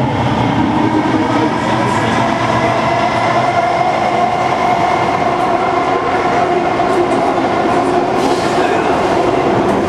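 Inside a Kawasaki C151 metro carriage running through a tunnel: a loud, even rumble of the train under way with a steady whine running through it.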